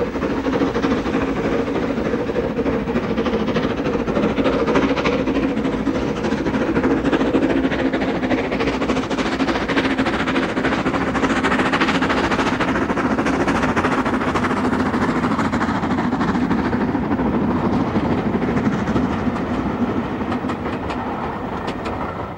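Somerset and Dorset 7F 2-8-0 steam locomotive working a passenger train past, loud and steady. Near the end it fades as the coaches roll by, their wheels clicking over the rail joints.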